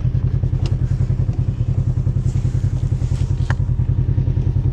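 Small engine running steadily at a constant speed, with a fast even pulsing, and a few faint clicks over it.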